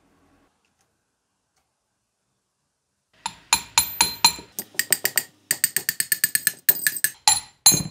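A steel air hammer cylinder being struck with a metal rod: sharp metal-on-metal knocks with a ringing tone begin about three seconds in and quicken to several a second as the piston is knocked out of the bore.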